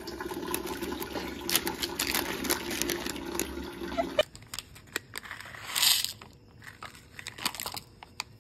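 A small foil mint pouch crinkling and crackling as hands work it open. About six seconds in comes one short hiss as the tiny dry noodles inside are tipped out into a plastic cup.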